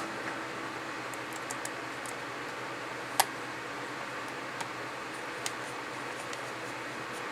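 Sparse small clicks and ticks of a Phillips screwdriver and plastic parts as screws are driven back into a PS4 controller's shell, with one sharper click about three seconds in, over a steady room hum.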